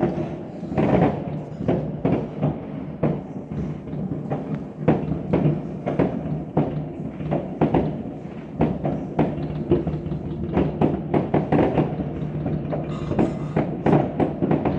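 Many fireworks and firecrackers going off around the listener, a dense, irregular run of sharp bangs and cracks.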